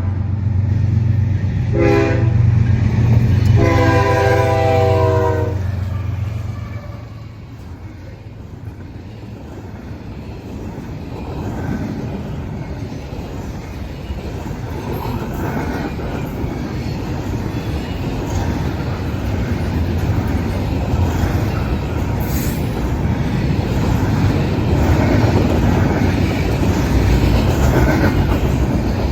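Norfolk Southern diesel-electric locomotive's air horn sounding a short blast about two seconds in and a longer one near four seconds, the close of a grade-crossing horn signal, over the locomotive's heavy engine rumble. The engine passes and fades around seven seconds. The intermodal train's cars then roll by with steady wheel and rail noise that grows louder.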